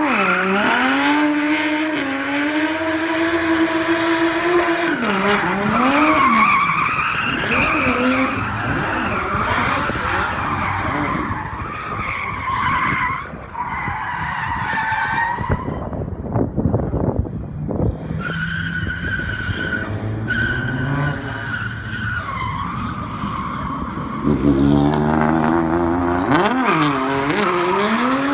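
Nissan Skyline R34 drift car's engine revving up and down through a drift, with tyre screech and skidding. Near the end a second car's engine joins as it drifts alongside.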